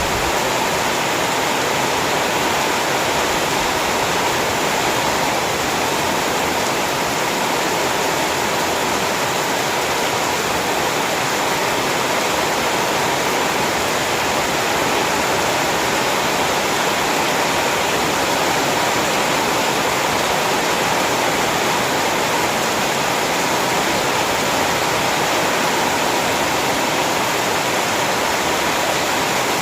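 Heavy rain falling, a steady even hiss that does not change.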